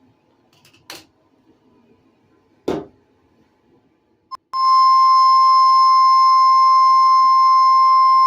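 Weather radio warning alert tone: a loud, steady electronic tone near 1 kHz starts about halfway through, right after a short beep, signalling that a warning broadcast is about to be read. Before it there is a soft click and a knock.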